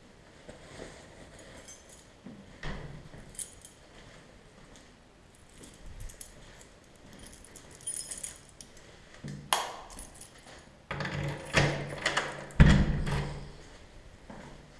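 Handling noise: small metallic jingles and clicks, then a run of louder knocks and thumps with a low hum, the loudest thump near the end.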